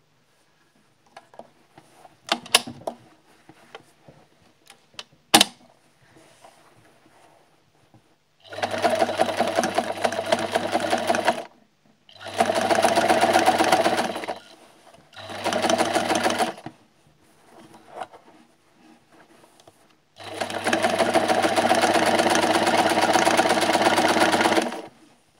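Electric sewing machine stitching in four runs separated by short pauses, the longest near the end. A few sharp clicks and knocks come in the first several seconds, before the machine starts.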